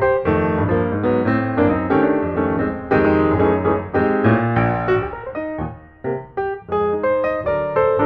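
Solo piano music, a busy run of struck notes with a short lull about six seconds in.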